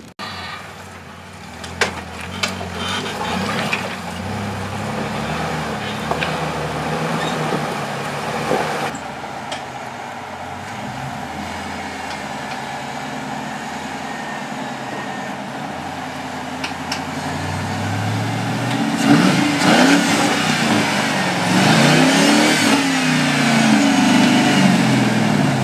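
Jeep engine working through a rock-crawling climb, revving up and down over and over at low speed, with a sharp knock about two seconds in. The revs grow louder and swing quickly up and down in the last several seconds.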